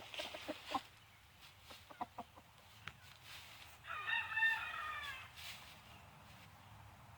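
A rooster crows once, about four seconds in, a call of a little over a second that drops at the end. Before it come a few short clucks.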